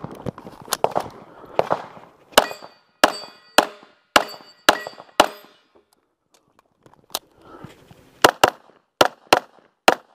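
Pistol shots fired in quick strings about half a second apart during a competition stage, several followed by the ringing clang of hit steel targets. A pause of about a second and a half falls after the middle string, and a magazine reload clatters at the very start.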